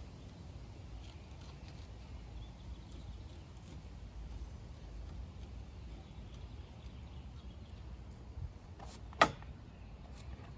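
Faint scraping of a knife point being twisted into a thin wooden fireboard to carve a divot, over a low rumble of wind on the microphone. One sharp click near the end.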